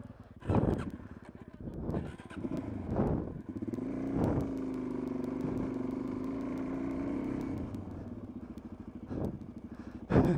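Suzuki DR-Z400 single-cylinder four-stroke engine being ridden offroad: the revs rise and fall several times, then hold steady for about three seconds before dropping back. Loud thumps about half a second in and again near the end.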